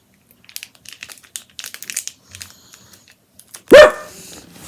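Crinkling and rustling of a cardboard dog Advent calendar being pried open, then one loud, short bark from a dog near the end.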